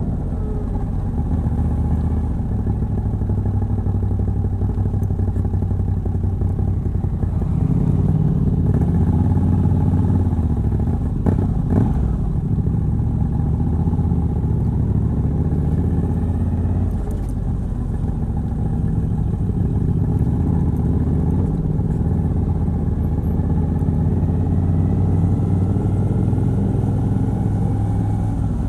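Moto Guzzi V85TT's air-cooled transverse 90° V-twin, stock exhaust with a Mistral decat, running under way at an easy pace. It pulls harder and louder for a few seconds about a third of the way in, with a brief knock just after.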